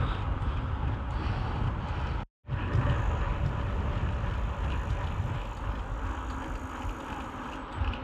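Headwind buffeting the microphone of a moving mountain bike: a gusty low rumble that drops out for a moment a little over two seconds in.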